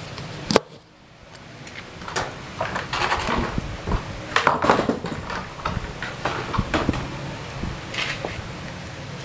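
Clatter, knocks and scraping of hands and tools working on a washing machine's thin sheet-metal casing, with a sharp click about half a second in and a denser run of scraping from about three to five seconds in.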